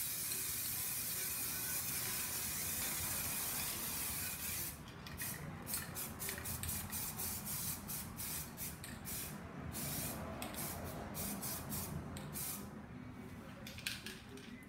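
Aerosol spray can of black paint hissing: one continuous spray for about four and a half seconds, then a string of short bursts.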